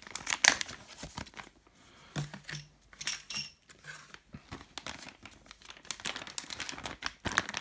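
Clear plastic bag crinkling and rustling as hands open it and handle what is inside, in an irregular string of short crackles.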